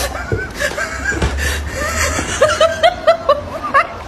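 A person laughing in quick, high-pitched bursts of about four a second, starting a little over a second in, over a low rumble.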